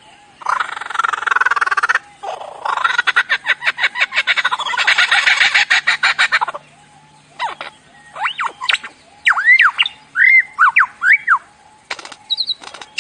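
A mimicking bird calling: a harsh, rasping squawk, then a fast, rattling run of notes lasting about four seconds, then a string of short whistled notes that each rise and fall.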